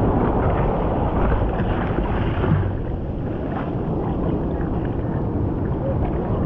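Surf whitewater rushing and churning around a surfboard and surfer, with wind buffeting the board-mounted microphone; a little louder in the first couple of seconds, then settling to a steadier wash.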